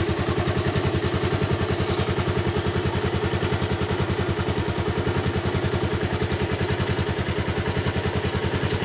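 Motorcycle engine idling steadily, with an even, rapid beat that holds the same pace throughout.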